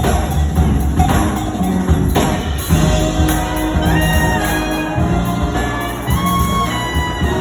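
Live big-band jazz played by a school jazz band: drums and bass with sharp percussion strokes, then held horn lines coming in about three seconds in.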